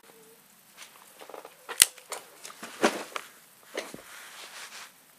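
Handling noises from a Zoraki R1 4 mm Flobert revolver between shots: scattered clicks and rustles, with one sharp click about two seconds in.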